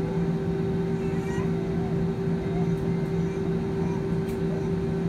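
Airliner jet engines running steadily at low power, heard inside the cabin as the plane taxis on the runway after landing: an even hum with a low drone.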